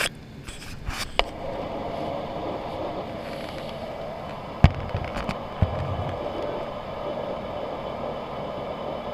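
Steady airliner cabin noise from the jet engines and airflow, heard from a window seat. A few sharp knocks and clicks break in during the first second and again around the middle, the loudest about four and a half seconds in.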